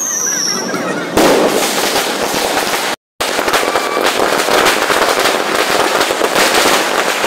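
A firework rocket gives a short falling whistle as it climbs, then bursts with a bang about a second in, followed by dense crackling. After a brief cut there is a continuous rattle of crackling and popping fireworks.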